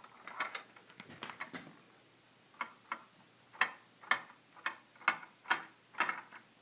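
Plastic Perplexus Epic maze sphere being turned in the hands, with its ball running along the tracks inside: a string of sharp, irregular plastic clicks, pausing briefly near the middle and then coming about two a second.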